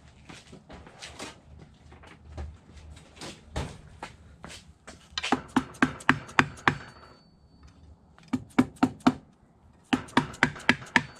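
Soft-faced mallet tapping the side cover of a Yamaha YFZ450R engine down onto its gasket and dowels. Three runs of quick, sharp taps, about five a second, come after a few seconds of faint clicks from handling the cover.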